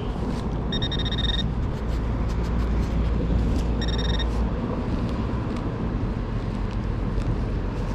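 Metal detector sounding two short, steady high beeps, about three seconds apart, as it is swept over a buried target, over a steady low rumble.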